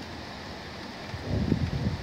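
Storm wind gusting over the phone's microphone, rumbling and buffeting unevenly and strongest a little past halfway, over a steady hiss.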